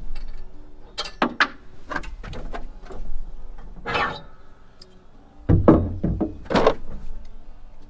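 Metal clanks and knocks from a Curt A25 fifth-wheel hitch being handled: the steel hitch head and its release handle are rocked and worked by hand. A quick run of sharp knocks in the first half, a short rattle about halfway, then a few heavy, deep thumps, the loudest of the lot, near the end.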